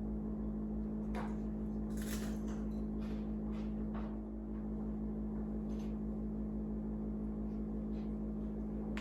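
Someone biting and chewing a dry, crisp browned cheese cracker: a scattered run of soft crunches, over a steady low electrical hum.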